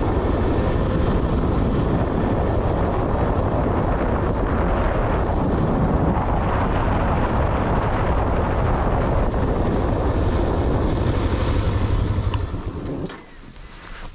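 Steady road and wind noise from a moving vehicle, with wind rushing over the microphone. The noise drops off sharply about a second before the end, leaving a quieter background with a couple of clicks.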